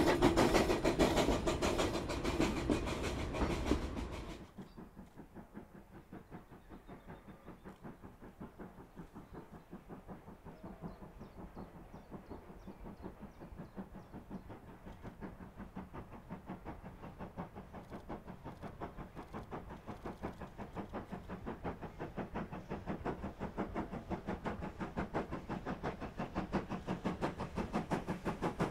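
Steam locomotive working: a loud, dense passage that stops abruptly about four seconds in. It is followed by a fainter, regular exhaust beat that grows steadily louder as a locomotive draws nearer.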